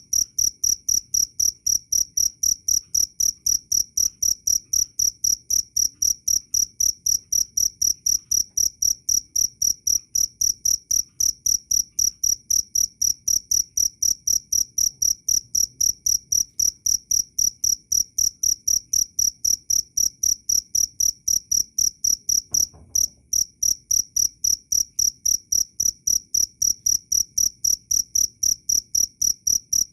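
Cricket chirping steadily: a clear, high, pure chirp repeated evenly about three to four times a second, with one brief gap past the middle.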